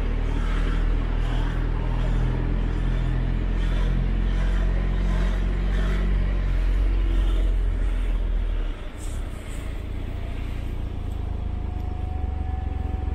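Motorcycle engine running steadily at low speed, a low hum. About two-thirds through it cuts off suddenly, giving way to a quieter rumble with a faint, slowly rising tone.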